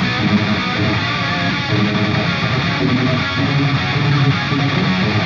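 Background music: a guitar-led rock intro with strummed guitar, playing steadily.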